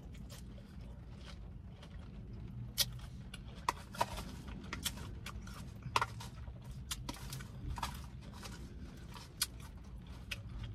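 Close-up eating sounds: chewing and crunching a lettuce tuna salad, with sharp little clicks of a fork against a plastic container, over a steady low hum.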